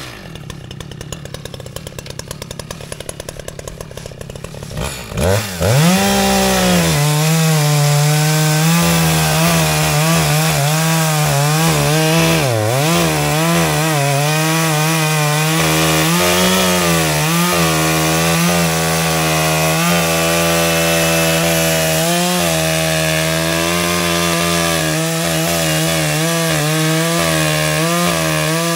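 Two-stroke engine of an Echo CS-620PW chainsaw idling with a rapid even beat, then opened to full throttle about five seconds in. It runs at high revs as it cuts into a tree stump, its pitch dipping and recovering as the chain bites under load.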